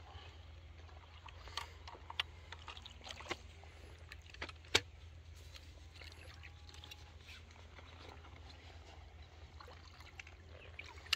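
Faint sloshing and trickling of shallow floodwater, with scattered small clicks and splashes, one sharper click about halfway through, over a low steady rumble.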